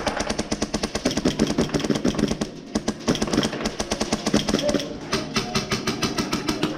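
Airsoft electric guns firing full-auto in long, very fast bursts, a rapid mechanical clatter of shots with short breaks about two and a half seconds in and again near five seconds.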